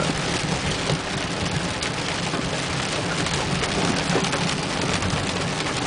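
Rain falling steadily on a moving car, with a low steady rumble of the engine and tyres on the wet road underneath.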